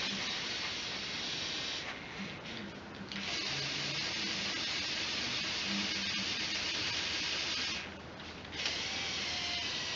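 Lego Technic 8043 excavator's Power Functions electric motors and gear trains whirring as the boom and bucket work. The whirr stops briefly twice, about two seconds in and again near eight seconds.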